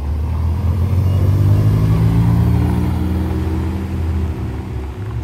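A car engine running, its pitch rising over the first two or three seconds and then easing back.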